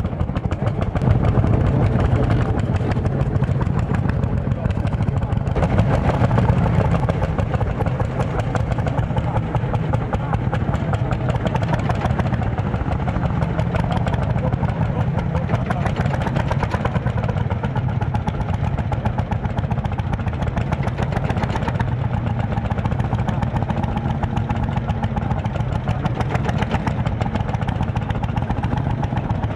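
Lanz Bulldog tractors' single-cylinder hot-bulb two-stroke engines running steadily as they pull a trailer through mud.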